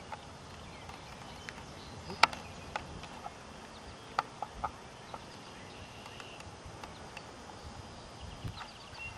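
Footsteps on an asphalt road: a few irregular sharp taps, the loudest about two seconds in and a small cluster a couple of seconds later, over a quiet outdoor background.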